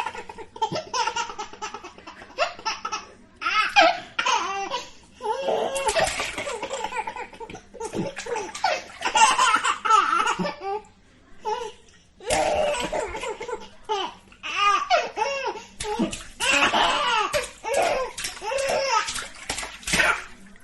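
A baby laughing in repeated bouts of belly laughs and giggles while splashing water in a kitchen sink, with short splashes between the laughs.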